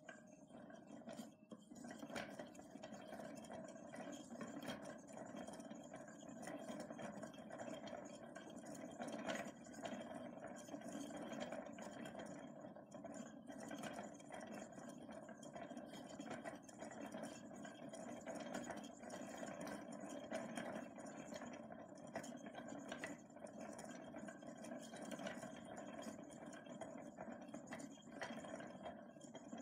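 Zaguri, a hand-cranked thread reeler with a cast-iron gear wheel, turning steadily as thread winds onto its wooden reel: a faint, continuous mechanical running sound with scattered light clicks.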